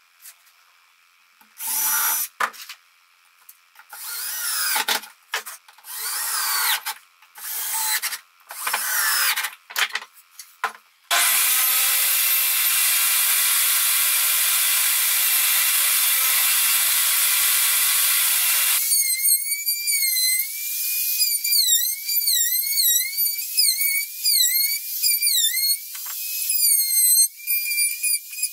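Several short bursts of a power tool, then a table saw running steadily for about eight seconds while it cuts wood. After that comes a trim router's high whine, which dips again and again as it cuts into a wooden board.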